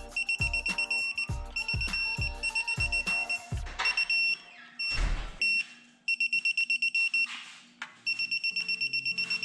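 Digital torque wrench beeping as it reaches its 5 ft-lb setting on the oil pan bolts: several runs of rapid, high, even beeps, about eight a second, each run lasting a second or two.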